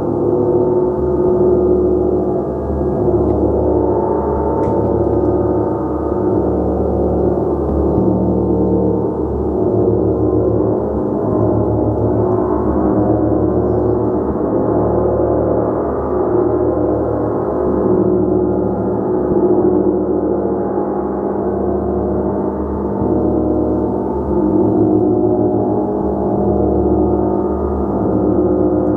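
Gong played continuously: a sustained wash of many overlapping ringing tones that swells and eases gently, with no single strike standing out.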